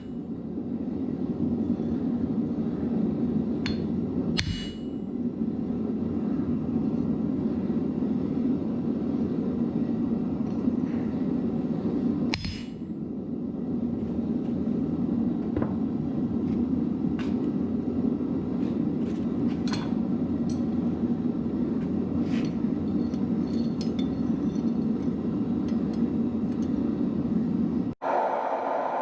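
Steady low roar with sharp metallic clinks: a loud one about four seconds in, another about twelve seconds in, and many fainter ticks between. The roar cuts off suddenly near the end.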